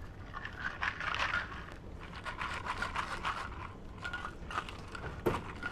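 Handling noise close to the microphone: irregular scraping and rustling as a travel tumbler is held and carried, with one sharp knock about five seconds in.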